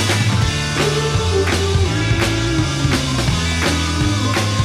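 Background rock music with a steady drum beat, bass and guitar.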